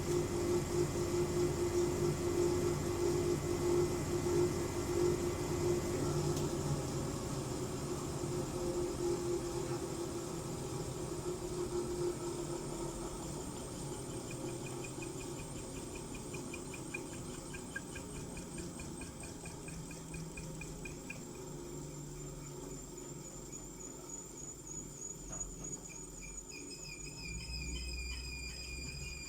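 Hoover Zerowatt washing machine drum slowing down after its spin cycle. A steady hum and drone die away over the first dozen seconds, then high, warbling squeaks repeat as the drum coasts to a stop. The owner takes the noise for worn bearings.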